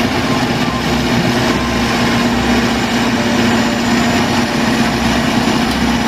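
Diesel engine of a large crawler bulldozer running steadily under load as it pushes earth, with a constant engine drone; the sound starts and cuts off abruptly.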